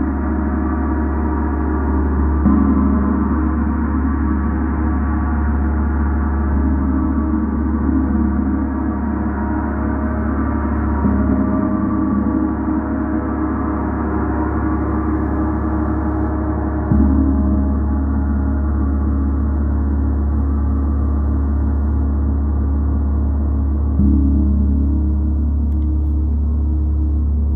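A gong ringing continuously in a dense wash of overlapping tones over a deep low hum. It is struck softly again three or four times, each stroke swelling the sound before it settles.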